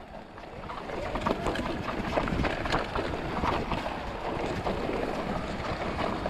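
Mountain bike riding fast down a choppy dirt trail: a steady rush of tyre and trail noise with many small clicks and knocks from the bike rattling over bumps, and wind on the microphone.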